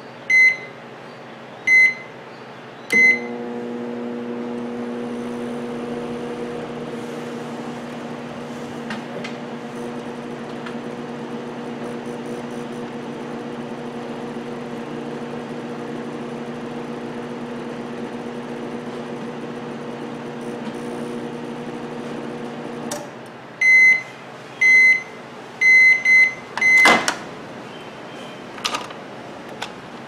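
Cetron microwave oven keyed on with three beeps, then running with a steady hum for about 20 seconds, heating properly now that the fault is traced to the magnetron. A run of end-of-cycle beeps follows, then a sharp click as the door is opened.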